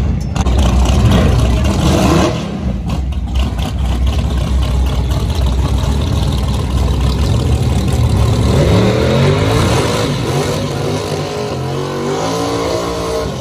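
Drag car doing a burnout, its engine running hard at high revs. About eight seconds in, the engine pitch climbs steeply, then holds high until it cuts off suddenly.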